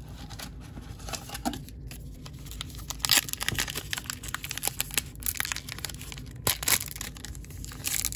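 A trading-card pack's wrapper crinkling and being torn open by hand. The sharp crackles are sparse at first and grow busier and louder from about three seconds in.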